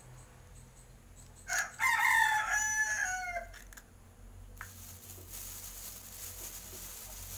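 A rooster crowing once: a single call of about two seconds with a drop in pitch at its end.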